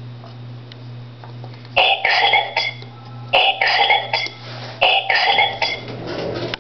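A person coughing three times, about a second and a half apart, over a steady low hum.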